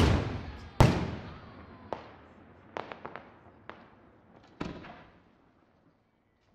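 Aerial firework shells bursting: two loud bangs in the first second, each trailing off in a long echo, then a few smaller cracks and one more bang about four and a half seconds in.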